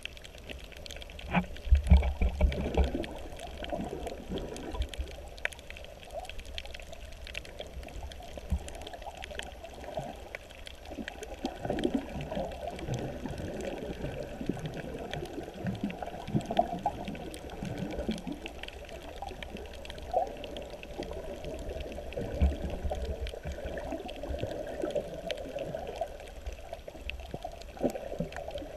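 Muffled water sloshing and churning as picked up by a camera underwater, with scattered faint clicks and a few louder low thumps about two seconds in and again later on.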